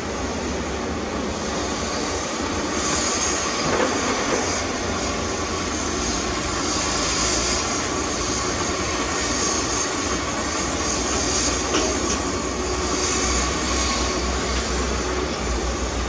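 Heavy diesel earthmoving machinery running steadily: a low engine rumble with a broad mechanical hiss over it.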